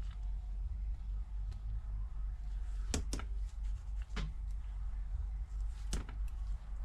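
A few small sharp clicks while protective film is peeled off the thin tape around an iPad screen's home button hole, over a steady low hum. The clicks come two close together about three seconds in, one a second later, and one near the end.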